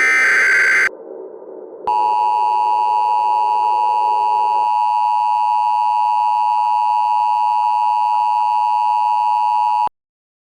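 Emergency Alert System signal: the last of the SAME header data bursts, a shrill warbling digital screech about a second long. After a one-second pause comes the steady two-tone EAS attention signal, which sounds for about eight seconds and cuts off suddenly. A low drone runs beneath for the first few seconds.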